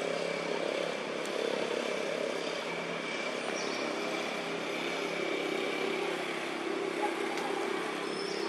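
Steady drone of an engine running without let-up, a low hum with a faint higher whine above it.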